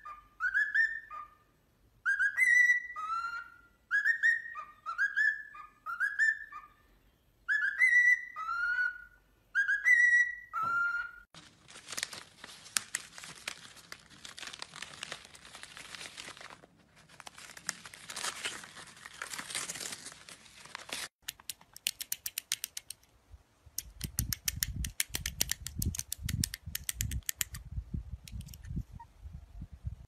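Cockatiel whistling a short repeated tune, about seven clear phrases of a rising note followed by a falling one. Then about ten seconds of paper crinkling and tearing as a caique shreds book pages, followed by a run of rapid clicks and low thumps near the end.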